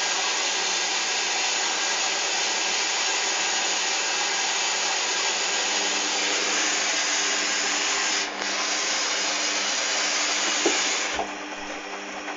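Hoover Dynamic washing machine filling with water for a rinse: a loud, steady hiss of water rushing in. It dips briefly about eight seconds in, then cuts off suddenly near the end as the fill stops, leaving a quieter hum.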